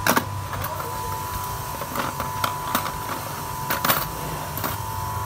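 Motorcycle clutch plates, steel and friction discs, clinking as they are handled and stacked on a plastic stool: about eight sharp clinks, the loudest near the start and around four seconds in.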